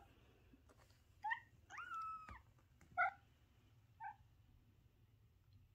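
Young kittens mewing: four thin, high-pitched calls, the second one longer and drawn out.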